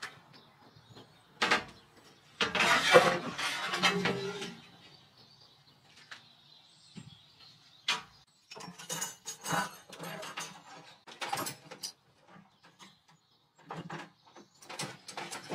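Handling noise: large glass panes knocking and scraping as they are moved and stood on end, then metal parts clinking and plastic bags rustling on a table. It comes as scattered knocks and short clusters of clatter with gaps between them.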